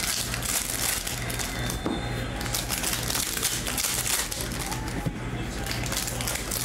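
Foil wrapper of a basketball trading-card pack crinkling and tearing as it is ripped open by hand, with the cards slid out.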